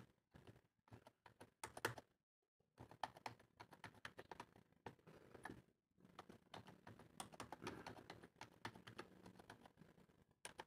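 Faint keystrokes on a computer keyboard, typed in quick irregular runs, with a short pause about two seconds in.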